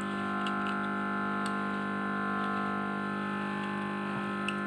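Steady electrical mains hum, with a few faint small clicks of the plastic TV remote casing and its battery spring being handled.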